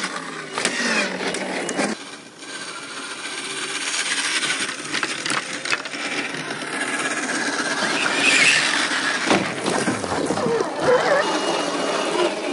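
1/10-scale RC crawler trucks driving over dirt, roots and rock: electric motor and gear whine that rises and falls with the throttle, over tyres crunching on gravel, with sharp knocks as a truck lands and bumps over obstacles near the start.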